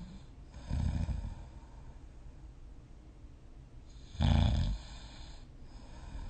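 A person snoring in deep sleep: two short, loud snores about three and a half seconds apart, the second one louder.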